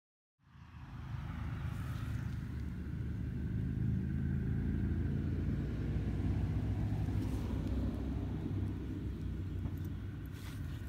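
A steady low rumble starting about half a second in, with a few sharp clicks near the end.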